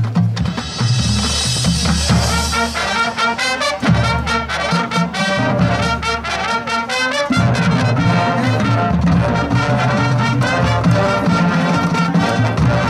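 School marching band playing: trumpets, trombones and saxophones over a drumline of snare, tenor and bass drums, with a run of quick drum strokes in the middle.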